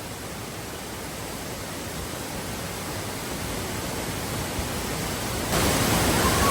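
Waterfall's rushing water, a steady hiss that slowly grows louder and steps up about five and a half seconds in.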